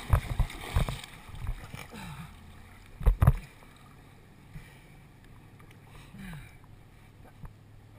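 Lake water splashing and sloshing around a floating wakeboard just after a fall: churning at first, settling within about a second, with a couple of heavy sloshes about three seconds in. A faint steady low engine drone from the distant tow boat runs underneath.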